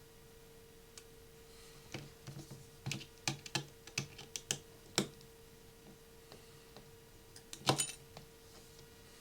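Small repair tools clicking and tapping against the opened iPhone 6 Plus's internal parts and shield: a run of sharp clicks between about two and five seconds in, and a couple more near the end. A faint steady hum sits underneath.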